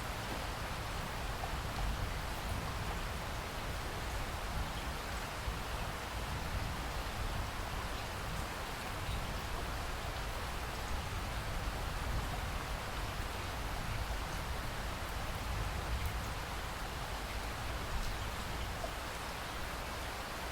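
Steady rain falling, with a low rumble underneath and a few faint drop ticks.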